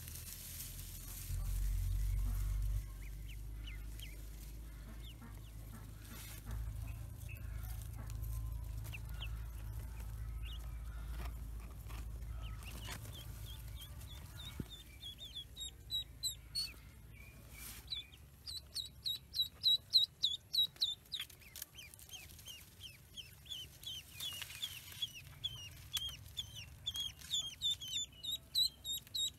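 Ducklings peeping in short, high calls repeated a couple of times a second; the peeping starts about halfway through and grows louder. Before it, a low rumble of handling on the microphone.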